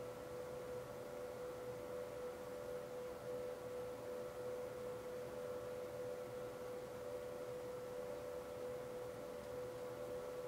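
A steady, unchanging whine, like equipment running in the room, with a fainter higher tone above it.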